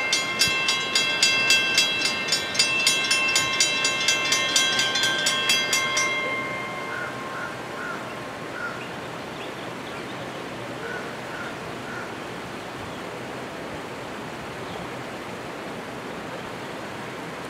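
Several mechanical railroad crossing bells (Safetran and WC Hayes) ringing fast together while the crossing gates lower. The bells cut out about six seconds in, once the gates are down, leaving a steady, quieter background hush.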